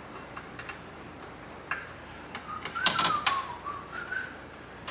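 Ground wire being pushed into the ground bar of a breaker panel: scattered clicks and taps of wire against metal, with two sharper knocks about three seconds in. A short wavering whistle runs under the knocks.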